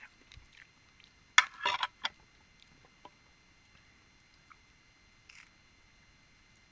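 Close-up eating and handling sounds of balut: a sharp click about a second and a half in, a brief crackly cluster right after, then scattered small clicks.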